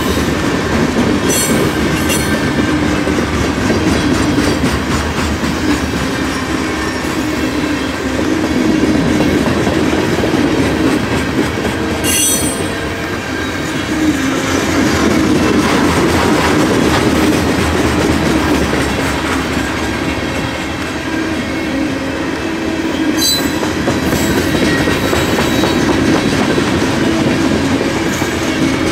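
Canadian Pacific freight train of covered hopper cars rolling past close by, a steady loud rumble of steel wheels on the rails, with a few brief high wheel squeals.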